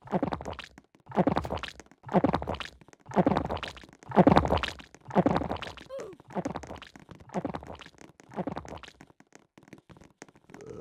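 A person making a rhythmic series of about nine throaty body sounds, roughly one a second, growing weaker toward the end.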